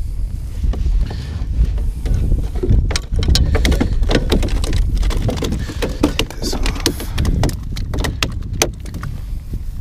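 Wind rumbling on the microphone, with a run of sharp knocks and clatter from about three seconds in as a freshly caught fluke and gear are handled in the canoe.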